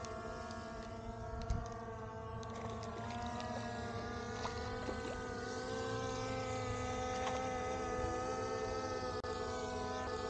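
Quadcopter camera drone hovering overhead: a steady whine of several pitches from its propellers, wavering slightly in pitch as it holds position, with a small knock about a second and a half in.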